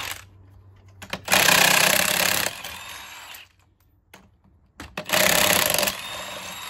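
Impact wrench hammering on the lug nuts of a pickup's front wheel: two bursts of rapid hammering, each about a second long, the first just over a second in and the second about five seconds in. Each burst trails off into a quieter run as the nut comes loose.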